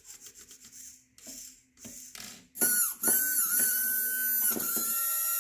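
A small electric RC motor, driven by its ESC, spins up about two and a half seconds in. It holds a loud, steady high-pitched whine, described as screaming, with a couple of brief dips, then cuts off near the end. Faint scratchy handling sounds come before it.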